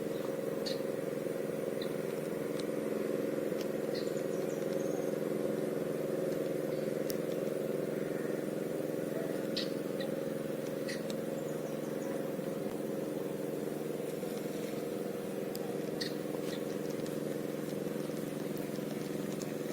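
A steady, even mechanical hum from a running motor, holding one pitch throughout, with a few faint short high ticks scattered over it.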